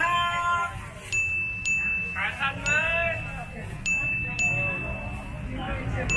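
A high, clean bell-like chime struck six times at uneven intervals on the same note, each strike ringing on until the next.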